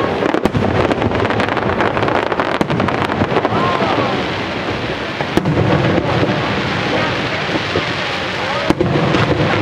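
Aerial fireworks shells bursting in a dense run: continuous rumbling booms and crackle, with a few sharper bangs among them, one about five seconds in and another near the end.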